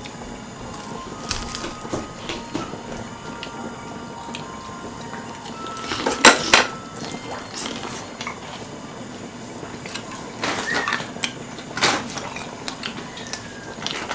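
Metal utensils clinking and scraping against dishes during a meal: a scattering of sharp clicks, the loudest cluster about six seconds in.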